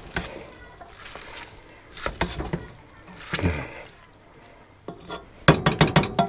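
Steel cooking pot of spaghetti carbonara knocking and scraping on a gas hob's grate as it is moved and shaken, with a quick run of rattling clatters near the end.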